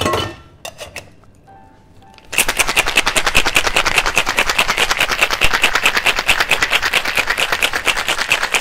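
Ice rattling inside a copper cocktail shaker as it is shaken hard: a clatter of the shaker being closed at the start, then, from about two seconds in, a fast, even rattle of ice against the tin that keeps going.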